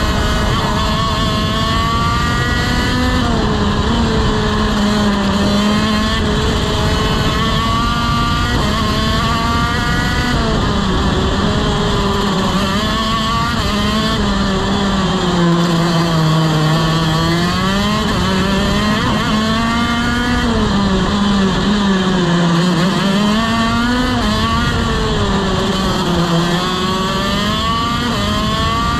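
TM KZ-R1 125cc two-stroke shifter kart engine at racing speed, its revs climbing and dropping back over and over through gear changes and corners, with the lowest revs about halfway through.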